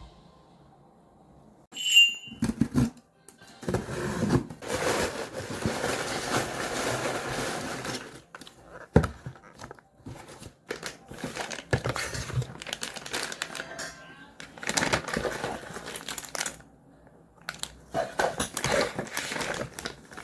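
Crinkling and rustling handling noises with scattered knocks, and a short ringing clink about two seconds in.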